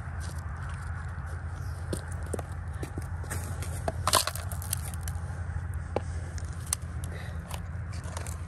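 Gravel and rocks being handled in plastic gold pans and a classifier screen: scattered small clicks and scrapes, with a louder plastic knock and rattle about four seconds in as one pan is set down on another. A steady low rumble runs underneath.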